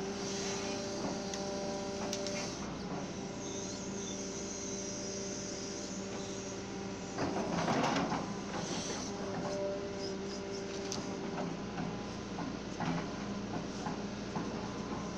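Mini excavator running steadily while it digs, the bucket scraping through soil and roots. There is a louder burst of scraping about seven to eight seconds in.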